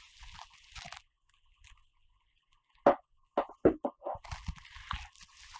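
Faint rustling, then a string of short clicks and light knocks from about three seconds in: camera shoulder rig parts being handled and set down on a wooden table.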